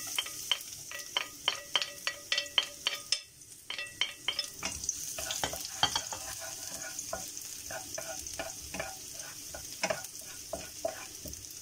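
Chopped onion frying in hot oil in a non-stick wok, stirred with a wooden spatula: a quick run of spatula taps near the start, then a steady sizzle that grows louder from about five seconds in, with occasional taps and scrapes.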